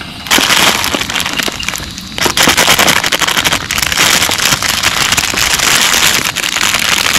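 Heavy rain drumming on a tent's fabric fly, a loud, dense crackling patter. It swells in suddenly just after the start, eases briefly about two seconds in, then stays loud.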